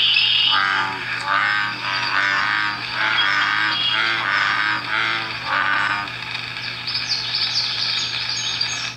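American bullfrogs calling: a run of repeated 'jug-o-rum' croaks, one after another. High falling chirps join in near the end.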